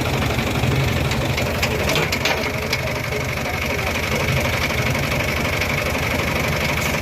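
Tractor diesel engine idling steadily, with a few light clicks about two seconds in.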